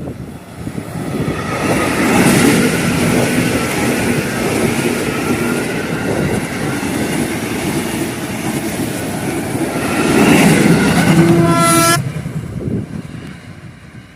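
A train passing close, with its wheels running loud on the rails. The sound builds over the first couple of seconds and holds for about ten seconds. Near the end the horn sounds, and everything cuts off abruptly.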